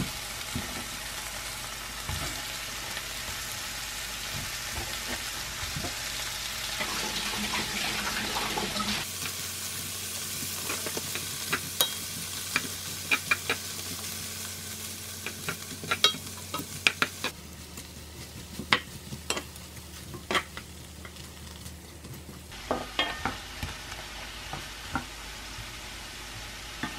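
Shrimp frying and sizzling in a nonstick frying pan as they are stir-fried with a spatula. The sizzle is steady for the first several seconds, then gives way to many sharp clacks and scrapes of the spatula against the pan.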